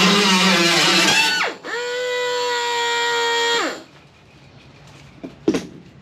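Guitar music for about a second and a half, then a steady pitched whine with many overtones that drops in pitch and stops about two-thirds of the way through. Two sharp knocks follow near the end.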